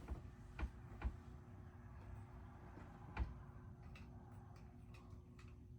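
A few faint knocks and clicks of hands and tools working on the stopped ceiling fan, with three sharper ones in the first half and smaller ticks later, over a faint steady hum.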